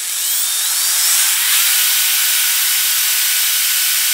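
Power drill spinning up with a rising whine, then running at a steady pitch as its bit cuts a hole through a thin clear plastic specimen container, with a constant hiss from the cutting.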